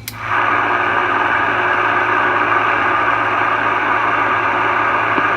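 Browning Mark III tube CB receiver switching back to receive with a click, then its speaker hissing with steady static on channel 21 over a low hum: no station is answering the call.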